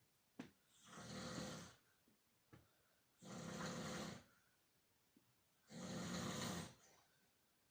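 A person snoring in sleep: three snores about two and a half seconds apart, each lasting about a second, with a short click just before the first.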